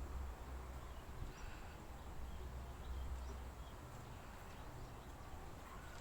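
Faint, scattered bird chirps over a low rumble.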